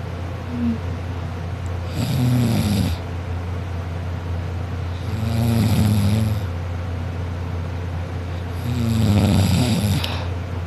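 A person snoring: three loud snores about three and a half seconds apart, each lasting about a second, over a steady low hum.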